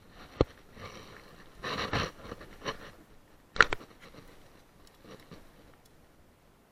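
Handling and rustling of clothing and gear right against a chest-worn camera, with a brief scuffle near two seconds in and two sharp knocks, the louder one about three and a half seconds in.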